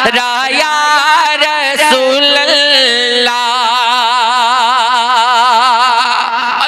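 A man singing a naat into a microphone: ornamented, shifting runs for the first three seconds or so, then one long held note with wide vibrato that stops just before the end.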